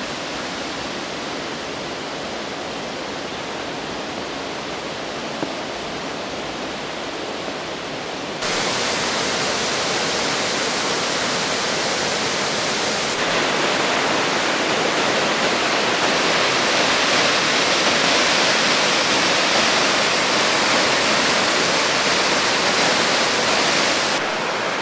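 Rushing water of the Liffey River at Liffey Falls, pouring over boulders and stepped rock ledges in a steady, even rush. It gets abruptly louder and brighter about eight seconds in and again a few seconds later, then drops back just before the end.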